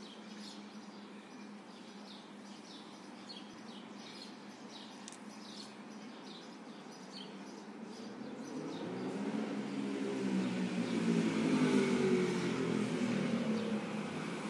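Birds chirping in quick short calls over a steady low hum, then a passing vehicle that grows louder from about eight seconds in, is loudest around twelve seconds, and eases off near the end.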